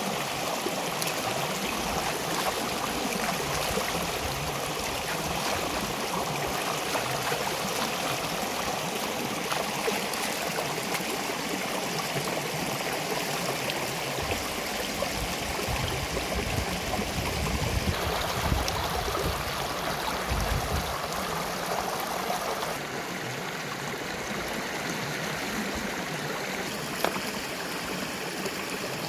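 Shallow river rushing over rocks: a steady wash of flowing water.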